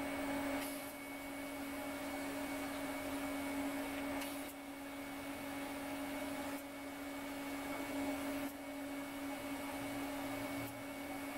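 TIG welder running as the butterfly screws are welded: a steady electrical buzzing hum with a hiss of the arc over it. The level shifts abruptly every couple of seconds.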